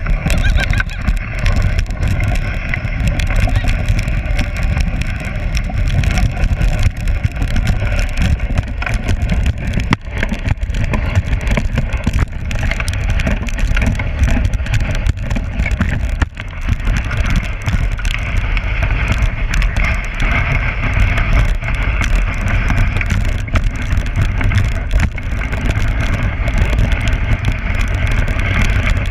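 Dogsled moving fast over packed snow: a steady low rumble and hiss from the runners, with small knocks and rattles from the sled.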